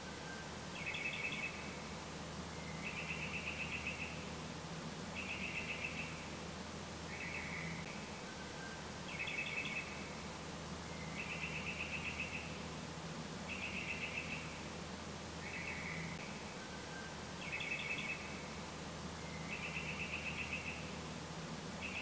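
Short high chirps and trills, about one every two seconds, in a pattern that repeats the same way roughly every eight seconds, over a low steady hum.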